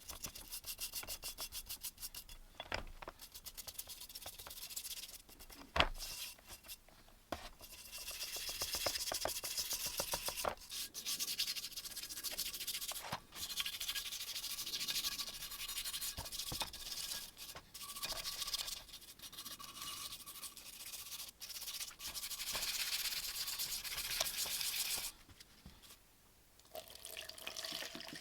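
Quick back-and-forth scrubbing strokes on rusty metal shear parts, an abrasive scraping rust off steel by hand. There are two sharp knocks early on, and a short pause near the end.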